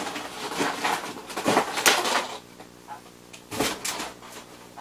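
Clear plastic toy packaging being handled and opened: crinkling and knocking, loudest about two seconds in, then quieter with one more brief burst a little past the middle.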